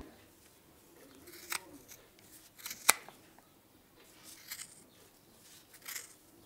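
A few short, sharp clicks or snips spaced a second or so apart in a quiet room, the sharpest about three seconds in.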